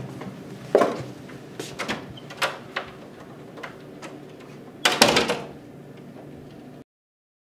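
A few sharp knocks, then a classroom door swinging shut with a loud bang about five seconds in. The sound cuts off abruptly shortly after.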